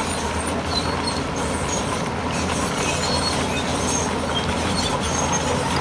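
Heavy diesel earthmoving machinery running steadily under load, with short high metallic squeaks and clinks scattered throughout, like crawler tracks and moving stone.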